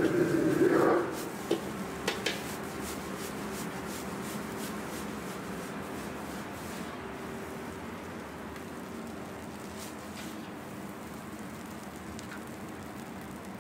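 Fried rice being stir-fried with a steel ladle in a wok over the gas burner: a loud, dense noise for about the first second, then it stops abruptly. A few sharp metal clinks follow. After that comes a steady, moderate kitchen hum with occasional light clinks as the rice is ladled into a steel bowl.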